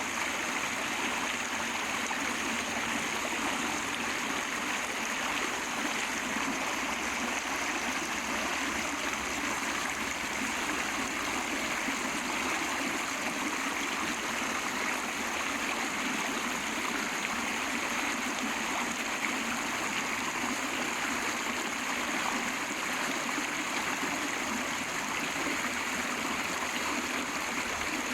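A small river flowing: a steady rush of running water that does not change.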